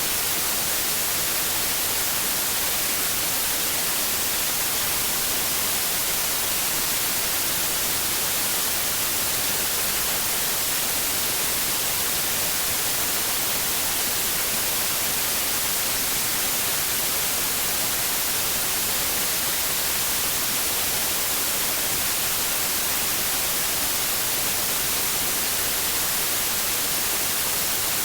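White noise: a steady, unchanging hiss, strongest in the treble, with no other sound in it.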